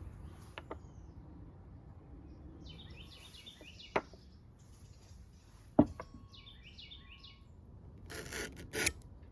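Hand woodworking: two sharp knocks on wood about two seconds apart, then a couple of short rasping strokes near the end, with a small bird chirping twice in between.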